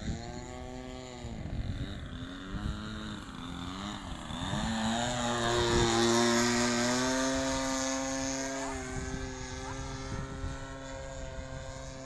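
DLE 20cc single-cylinder two-stroke gasoline engine of a radio-controlled model plane in flight. Its note wavers up and down for the first few seconds, then holds a steady pitch, and is loudest about halfway through.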